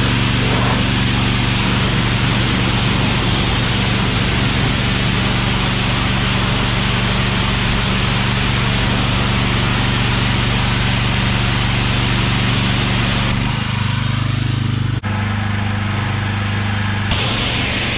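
Simpson PS60843 pressure washer's 420cc CRX gas engine running steadily under the hiss of the high-pressure water spray. About thirteen seconds in the spray stops and the engine note shifts, then the spray starts again near the end.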